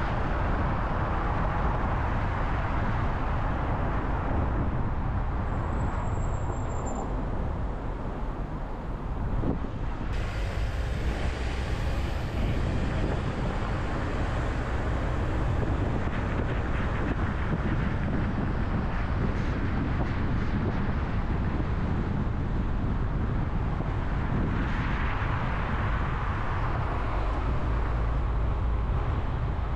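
A car being driven, its tyres and engine making a steady low rumble of road noise, with a brief swell in the noise near the end.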